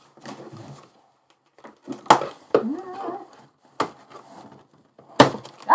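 A cardboard shipping box being cut open with scissors and handled: four sharp snaps or knocks, with cardboard rustling between them.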